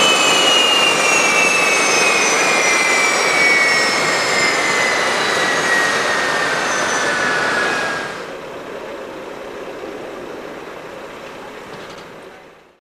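Twin Pratt & Whitney PT6A turboprop engines of a Beechcraft King Air 250 winding down after shutdown, a loud whine falling steadily in pitch over a rushing hiss. About eight seconds in, the whine gives way abruptly to a quieter steady rush that fades out near the end.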